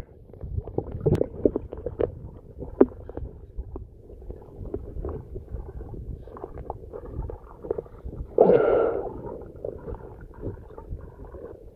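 Muffled underwater sound of a swimming pool heard through a submerged camera: low rumbling water with scattered clicks and knocks, and a louder muffled rush about eight and a half seconds in.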